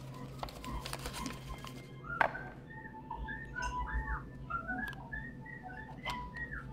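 A person whistling a sliding tune. Just before it starts, about two seconds in, a single sharp click comes as a small wooden box is opened.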